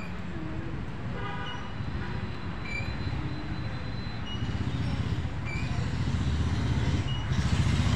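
Outdoor ambience: a steady low rumble that grows louder near the end, with a bird giving a short high call about every second and a half.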